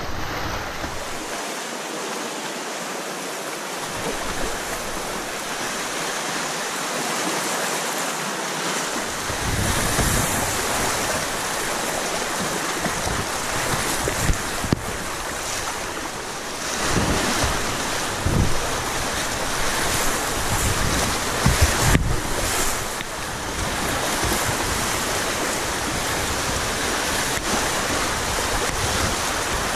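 Rushing whitewater of a mountain river splashing around a kayak, a steady roar of water with wind buffeting the camera microphone, heaviest in bursts between about 17 and 23 seconds in.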